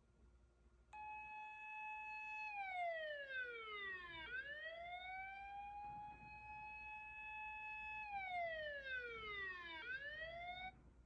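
Fire engine siren wailing: it starts about a second in, holds a high pitch, falls, rises back and holds again, then falls a second time and cuts off just as it begins to rise.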